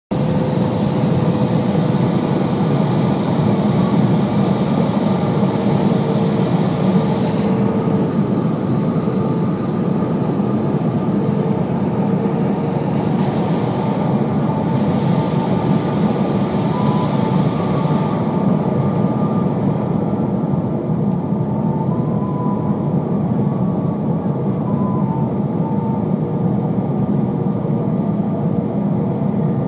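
Steady cabin noise inside an Airbus A320 on descent toward landing: a loud, even low rumble of the engines and the air rushing past the fuselage, with faint steady engine tones above it.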